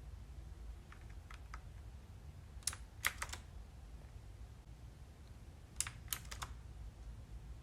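Clicky blue-switch mechanical keyboard keys (RK Royal Kludge S108 with round typewriter-style keycaps) being pressed in short groups of three to five sharp clicks, a few seconds apart, over a faint low hum.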